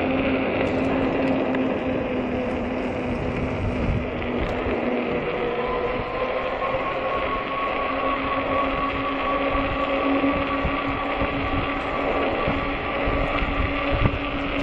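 Hub motor of a 48-volt fat-tire e-bike whining steadily under power, its pitch dipping briefly about five seconds in, over wind buffeting and tyre noise.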